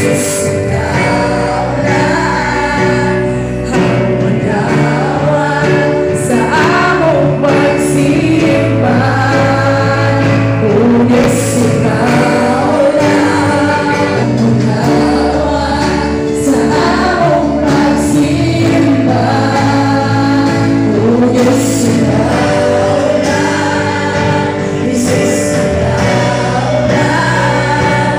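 Live Christian worship song: a woman's lead vocal over a band of drums, bass guitar and keyboard, with a congregation singing along.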